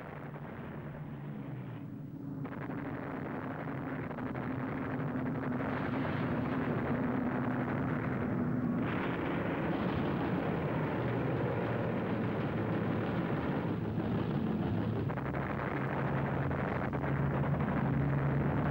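Battle sound effects: a steady drone of aircraft engines under a continuous rumble of explosions and gunfire, shifting abruptly a few times.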